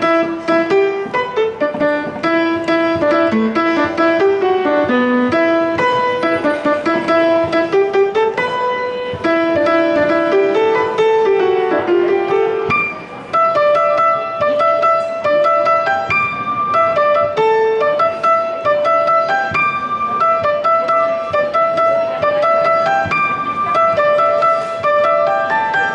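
Piano playing an upbeat pop tune, melody over chords, with a brief break about halfway through.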